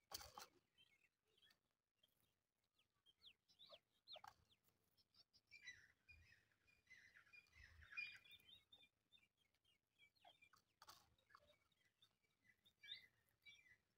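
Faint calls of a pair of chukar partridges: scattered soft clucking and chattering notes, busiest in the middle. A sharp click at the very start and another about eleven seconds in are the loudest sounds.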